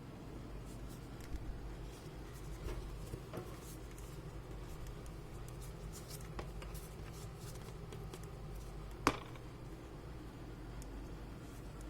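Light scraping and scattered small clicks of hands handling laptop parts, with one sharper click about nine seconds in.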